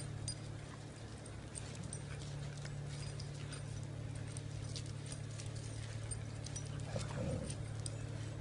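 Puppies playing on stone paving, their paws pattering with scattered small clicks, over a steady low hum. A short dog vocalisation about seven seconds in.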